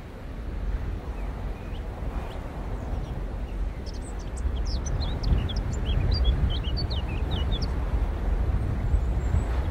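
A steady low rumble, with a small bird chirping a quick run of short high notes in the middle.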